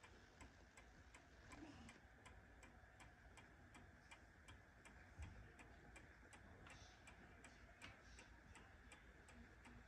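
Near silence with faint, regular ticking, about three ticks a second.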